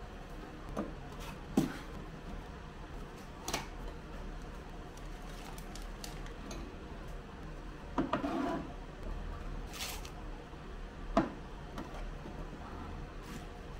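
Glass tumblers, tea boxes and sachets being handled and set down on a shelf: a handful of separate knocks and clinks, with a short cluster about eight seconds in, over a low steady hum.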